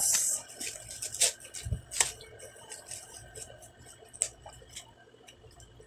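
Clear plastic produce bag crinkling loudly as a head of lettuce is pulled out of it, then scattered rustles and light crackles as the lettuce leaves are handled.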